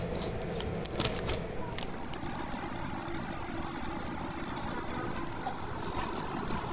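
Plastic and foil instant-noodle seasoning sachets being handled and squeezed, making scattered crinkles and clicks over a steady background hiss.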